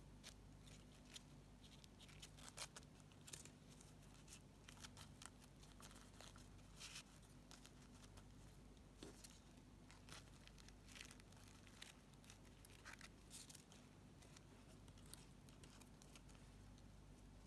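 Faint rustling and light scratching of satin ribbon petals being handled and pressed between the fingers, in short irregular bits over a low steady hum.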